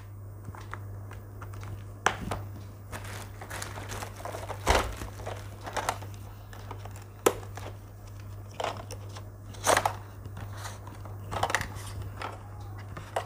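Plastic bag and stationery packaging rustling and crinkling as items are handled and taken out, with scattered irregular taps and clicks. A steady low hum sits underneath.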